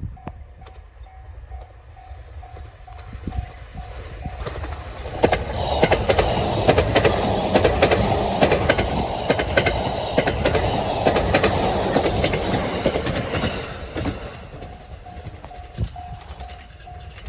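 Japanese level-crossing alarm ringing in steady pulses, about two a second, drowned out about four seconds in as a JR E353 series limited express Azusa train passes for about ten seconds, its wheels clicking sharply over the rail joints. The crossing alarm is heard again as the train goes by.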